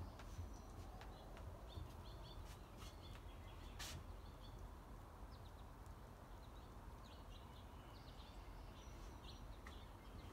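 Faint outdoor ambience: small birds chirping on and off over a low rumble, with a single sharp click about four seconds in.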